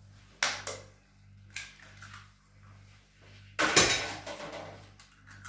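An egg being cracked against the rim of a ceramic bowl and dropped in: a few light knocks in the first couple of seconds, then a cluster of sharp taps and shell cracking a little past halfway through, the loudest sound.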